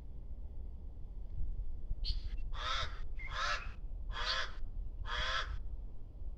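A bird giving a run of harsh, cawing calls: a short one about two seconds in, then four longer calls evenly spaced, under a steady low rumble.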